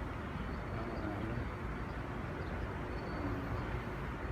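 Steady low rumbling outdoor background noise, with faint voices in the distance.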